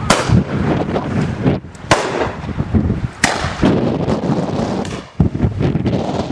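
Three shotgun shots at driven pheasants, about one and a half to two seconds apart, each ringing on briefly after the blast. Wind buffets the microphone throughout.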